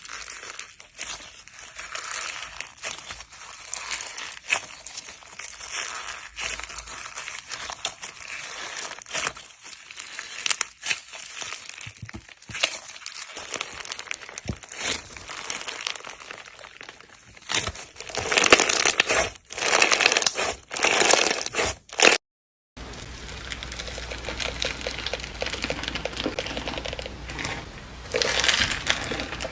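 Slime being squeezed and pressed by hand, making a dense run of crackling, crinkly little pops. Louder bursts of squishing come in a row about two-thirds of the way through, then stop at a brief silent cut before more of the same crackling.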